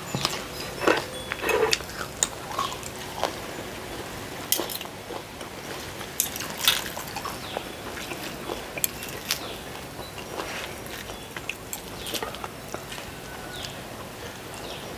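Metal spoon and fork clinking and scraping on a ceramic plate as fried eggs and stir-fried beef are broken up and mixed, in scattered short taps. Close-miked wet chewing sounds near the start.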